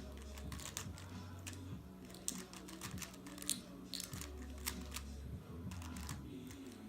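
A Rubik's cube being twisted: rapid, irregular plastic clicks, several a second, over background music with a low, held bass line.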